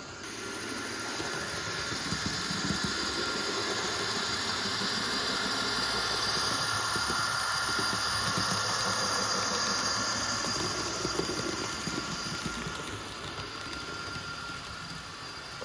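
N scale model locomotive running with its TCS WOWSOUND sound decoder playing a diesel prime mover sound through the model's small speaker, over a steady whine. It grows louder over the first couple of seconds and fades over the last few.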